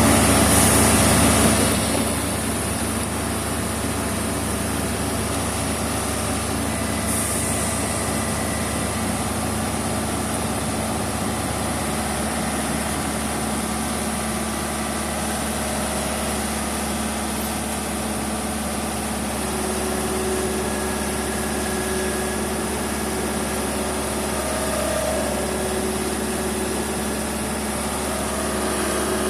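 Heavy truck engine running steadily, a little louder for the first couple of seconds.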